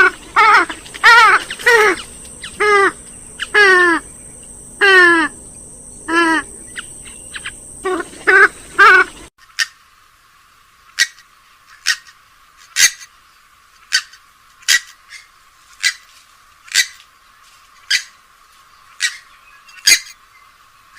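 Purple swamphen calls: a run of loud squawks, each note falling in pitch, repeated about once or twice a second. About nine seconds in the sound cuts abruptly to a thinner recording of short, sharp single notes, about one a second.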